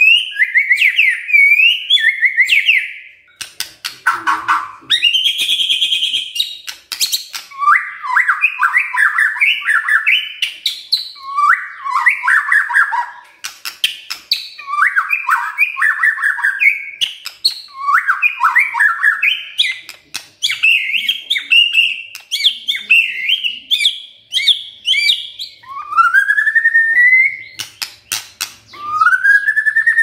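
White-rumped shama singing a 'kretekan': short repeated phrases of rapid, stuttering rattled notes with sharp clicks, one phrase every second or two. Near the end come two long slurred whistles, the first rising and the second rising then falling. Keepers play this rattling song to provoke other shamas into singing.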